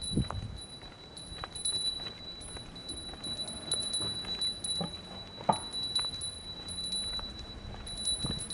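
A small bell keeps up a steady high ringing, with irregular light taps and knocks.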